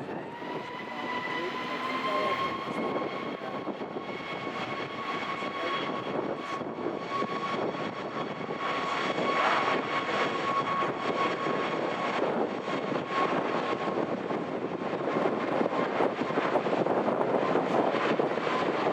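Boeing 737-8 MAX jet airliner with CFM LEAP-1B engines, a steady rush of jet noise with a high engine whine that rises slightly at first, holds steady, then fades out about three quarters of the way through while the rush goes on.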